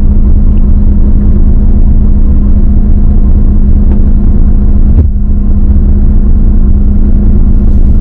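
Intercity bus diesel engine idling steadily, just after being jump-started with booster cables. A single knock comes about five seconds in.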